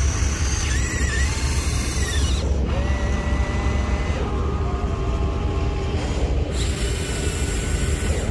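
Small electric motors and gearboxes of a radio-controlled excavator and dump truck whining. The pitch climbs, holds and drops as the machines start and stop moving, and it changes abruptly a few times. A steady low rumble runs underneath.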